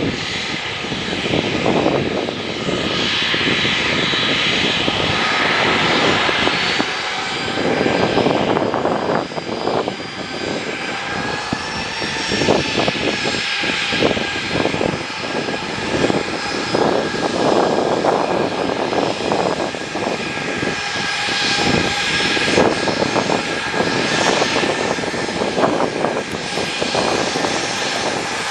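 Boeing 737-800's CFM56 jet engines running at low power as the airliner rolls along the runway: a steady high whine over a rushing roar that swells and eases every few seconds.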